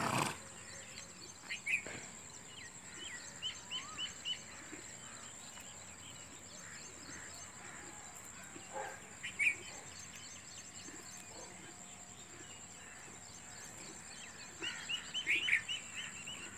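Outdoor ambience: small birds chirping in short bursts now and then, with a cluster of chirps near the end, over a steady high-pitched whine.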